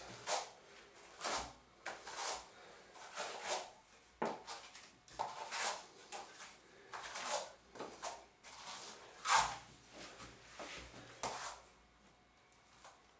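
A 10-inch texturing comb tool scraping through wet artex texture on a wall, in a run of short rasping strokes about one a second.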